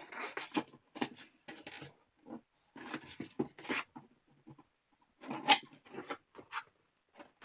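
Hands handling and opening Lego set packaging: irregular rustling and scraping with small clicks, coming in bunches with short pauses.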